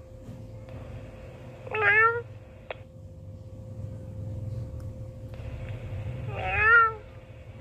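Two meows come through a walkie-talkie's speaker, one about 2 seconds in and a louder one near the end. Each sits inside a burst of radio hiss, and the first transmission cuts off with a click.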